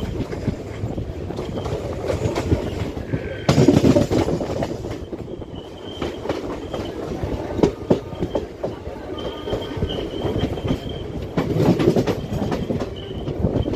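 Passenger train coaches running through a junction, wheels clattering over rail joints and points, with a louder burst of clatter about three and a half seconds in. A thin high wheel squeal comes and goes in the second half.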